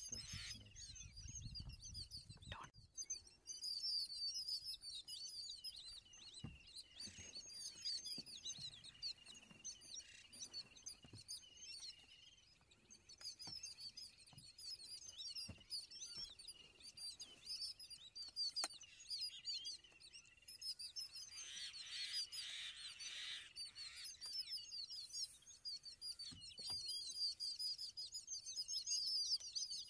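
A flock of yellow-billed babblers calling without pause in a dense stream of high chirps and chatter: mobbing calls at an Indian eagle-owl. About two-thirds of the way through, a louder, harsher burst of chatter.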